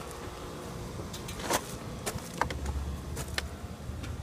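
Steady low machinery hum with a few scattered clicks and knocks. A deeper low rumble comes in about two and a half seconds in and lasts about a second and a half.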